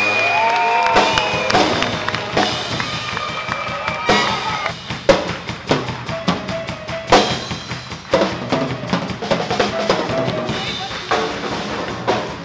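Swing jazz led by a drum kit: a steady run of snare, bass drum and cymbal hits, with crowd whoops in the first second before the drums come in.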